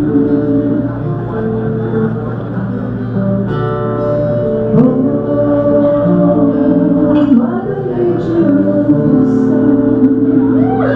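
A woman singing live with long held notes, accompanying herself on an acoustic guitar.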